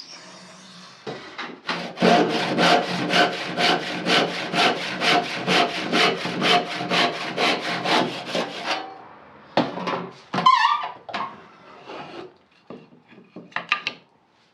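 A hand tool worked on a wooden trim strip in quick, even back-and-forth strokes, about three or four a second, for several seconds. It is followed by a few scattered knocks and short scrapes.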